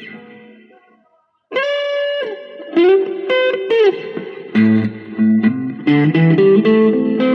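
Electric guitar played through a Joyo DC-15 practice modeling amp on its lead preset: a held note dies away, then after a short gap come sustained single notes with string bends and vibrato, followed by a busier run of notes.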